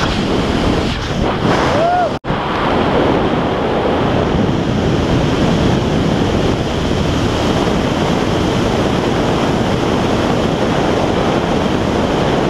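Wind rushing over an action camera's microphone during a parachute descent under canopy, a steady loud roar, broken by a sudden split-second dropout about two seconds in.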